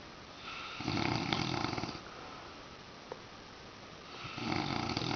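A man snoring heavily: two long snores, each about a second and a half, with a quiet pause of about two seconds between them.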